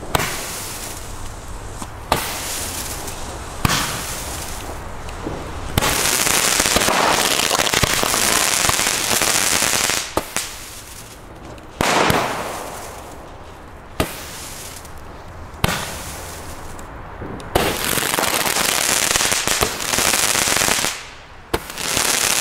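Weco Eruption fire-pot firework battery firing: about ten sharp launch reports, roughly every two seconds, each followed by a loud hissing rush of sparks lasting a few seconds.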